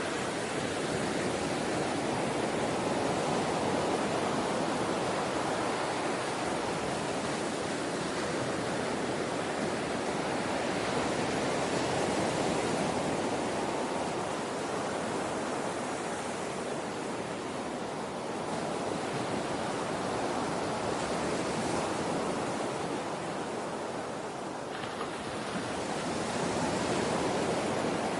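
Ocean surf washing in a steady rush, swelling and easing gently every several seconds.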